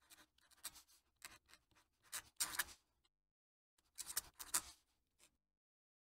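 Fountain pen nib scratching across paper in quick, short strokes as cursive handwriting is written, with a pause of under a second about halfway through while the pen is lifted.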